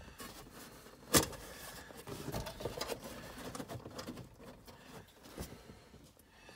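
Handling noises from fitting a cardboard glove box liner under a car's dash: a sharp knock about a second in, then light rustling and small taps, and another short knock near the end.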